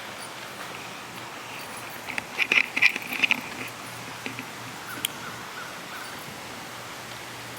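Steady outdoor background hiss, with a short run of high bird chirps about two to three seconds in.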